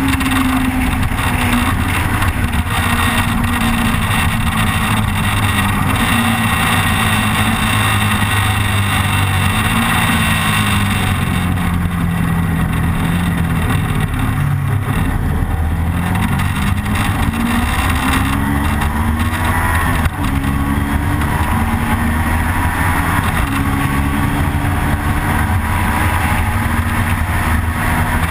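Motorcycle engine running at road speed, heard from a camera mounted on the bike, with steady wind rush. The engine pitch falls about ten seconds in as the bike slows into a bend, then climbs again from about sixteen seconds as it accelerates, with a short break near twenty seconds.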